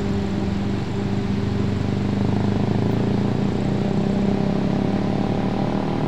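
Steady rush of fast, foaming water through a channel, with a steady low motor hum over it.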